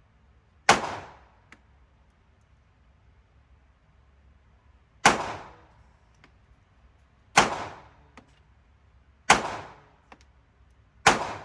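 Five shots from a Smith & Wesson Bodyguard .380 pocket pistol, fired one at a time at uneven intervals, each with a short echoing tail.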